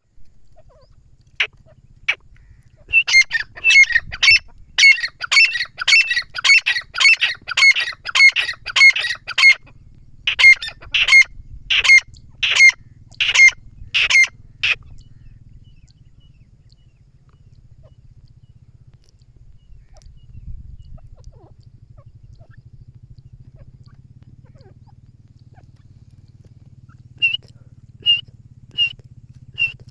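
A teetar (francolin) calling loudly: two single calls, then a fast run of sharp, repeated calls at about two a second for some twelve seconds, a long pause, and four more spaced calls near the end.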